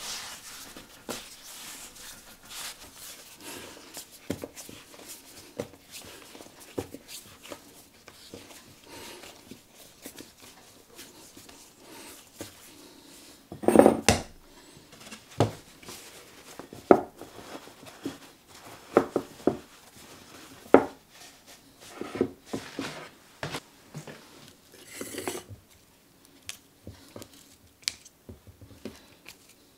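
Hands knead and press a floured ball of flour-and-water dough on a wooden board, with soft rubbing and squashing sounds. About 14 s in comes a loud knock as the dough goes into a glass bowl. After that there is a series of separate light knocks as tomatoes are handled and set down on the wooden board.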